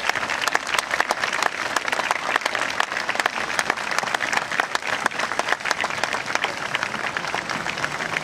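Crowd applauding, a dense and steady clapping that does not let up.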